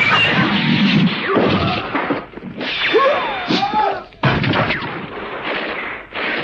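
Cartoon battle sound effects: gunfire and impact hits in a run of abrupt bursts that start and stop sharply, with short gliding sounds about three seconds in.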